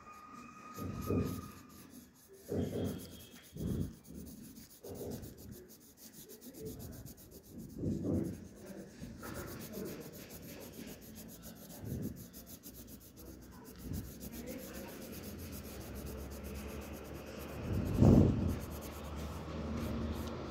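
A pen scribbling on paper, shading in a small shape with irregular rubbing strokes. There is one louder bump near the end.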